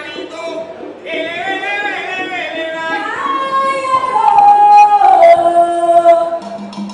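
Solo voice singing unaccompanied, a slow phrase of long held notes that slide downward, loudest in the second half. Near the end a few short percussive strokes come in.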